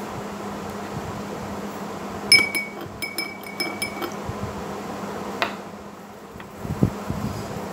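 Metal spoon stirring in a drinking glass, clinking against the glass in a quick run of ringing strikes for about two seconds, starting a couple of seconds in, to dissolve a tablet in the liquid.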